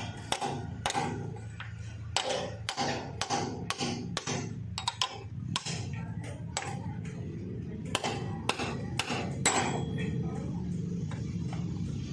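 Hammer blows on a steel drift, driving a 6204 ball bearing into the crankshaft end of a Mahindra 265 DI tractor engine: a run of sharp metallic knocks, about two or three a second and uneven in spacing, over a steady low hum.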